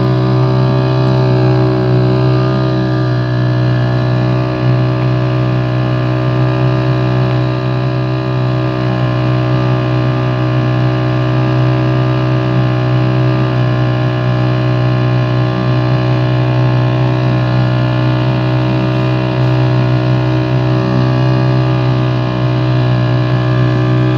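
Small boat's motor running at a steady speed, heard from aboard: one loud, unchanging low pitch with a buzzy edge.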